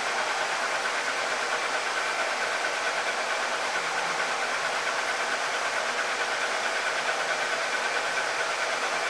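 Laser engraver running while its head sweeps back and forth engraving: a steady mechanical whir and air noise with a faint constant whine.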